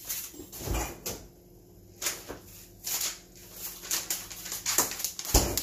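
Irregular knocks, clicks and rustles of things being handled and moved about, as a pouch of cacao powder is fetched. There is a heavier thump under a second in and another near the end.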